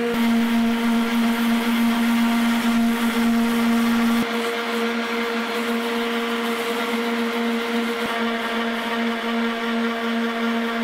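Electric palm sander running on a medium-grit pad, smoothing cured epoxy filler over gelcoat cracks on a fiberglass canoe hull. It gives a steady pitched motor tone over an even sanding hiss.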